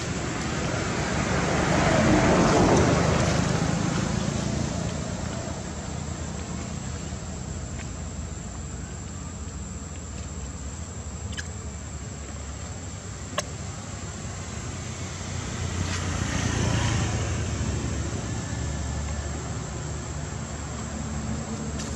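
Steady outdoor background rumble and hiss that swells louder twice, about two seconds in and again near the end, with a single sharp click in the middle.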